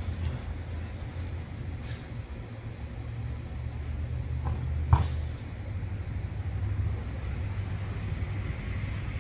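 A steady low motor hum, like an engine running at a distance, with one sharp click about five seconds in.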